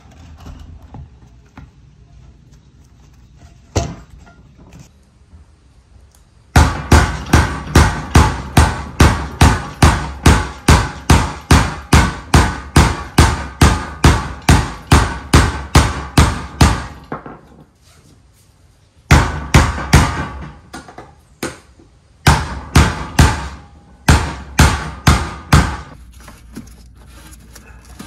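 A hammer driving a screwdriver against the metal lock ring on a plastic fuel tank, to turn the ring tight over a new fuel pump assembly. The sharp strikes come about three a second in three runs with short pauses between them. One lighter knock comes about four seconds in.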